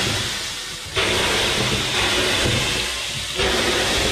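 Water dashed onto the hot stones of a smoke-bath stove, the steam hissing up in surges: one about a second in and another near the end, each starting sharply and dying away. Steam given to drive the fumes (carbon monoxide) out of the bath before it is shut to stand.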